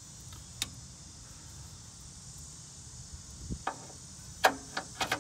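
Steady high-pitched insect chirring, with a few sharp clicks and knocks near the end, the loudest about four and a half seconds in.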